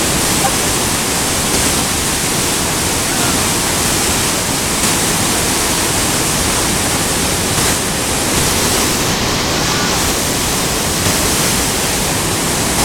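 Whitewater of a river falls rushing, a loud, steady roar of falling water.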